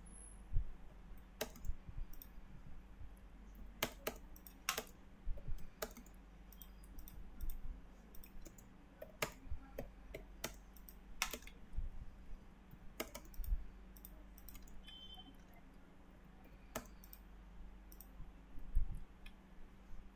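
Computer mouse clicks and keyboard keystrokes, irregular and scattered, while drafting in AutoCAD, over a low steady hum.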